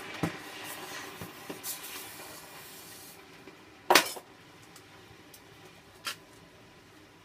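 Molten glass hissing and crackling as it is quenched in a bucket of water, the red-hot glass boiling the water; the hiss fades over the first second or so. About four seconds in comes a sharp metallic clank, the loudest sound, and a lighter clank about two seconds later.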